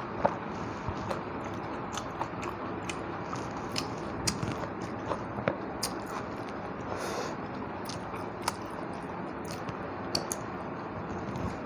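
Close-up chewing and mouth sounds of someone eating rice with fish curry, with many short wet clicks and smacks scattered through, and a brief louder rustle about seven seconds in.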